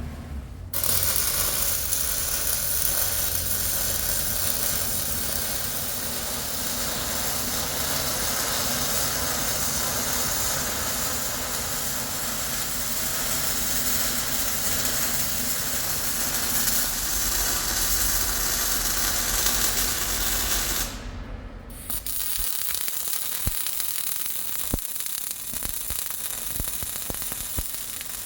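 MIG welding arc crackling and hissing steadily as a weld bead is laid on steel. It stops for under a second about three-quarters of the way through, then a new run starts.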